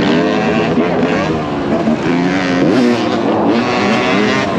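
Dirt bike engines revving, their pitch rising and falling as the bikes shift and ride the track, with more than one engine heard at once.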